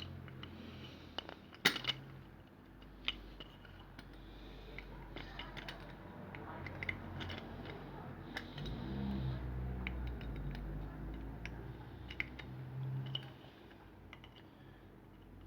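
Scattered small metallic clicks and scrapes of a screwdriver and pliers working a Phillips screw out of a car bonnet lock cylinder, with one sharp click about a second and a half in. A low rumble comes and goes in the second half.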